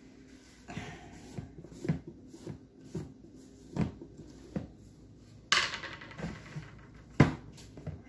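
Jars and utensils being handled on a kitchen countertop: a series of separate knocks and clicks as things are picked up and set down, with a brief scraping rasp about five and a half seconds in and a sharp knock a little after seven seconds.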